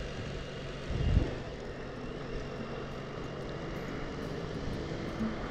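Motorcycle engine running steadily at road speed under a rush of wind noise, with one brief low thump about a second in.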